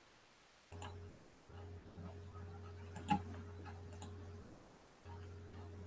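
A few faint clicks of a computer mouse, three or four, one a little louder about three seconds in, over a low steady electrical hum that cuts in and out.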